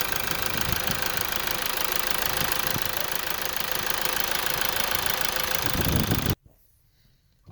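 Toyota 2AD-FHV four-cylinder common-rail turbodiesel running steadily with an even diesel injector clatter; the engine sound cuts off abruptly about six seconds in.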